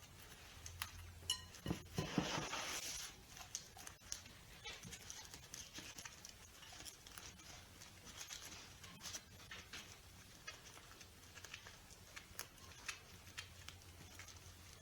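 Crinkling and rustling of the plastic packaging on a store-bought pie crust being opened: scattered small crackles throughout, with the loudest rustle about two seconds in.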